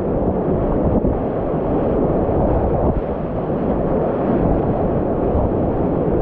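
Whitewater rapids rushing loudly and steadily around a kayak running through them, heard close to the water.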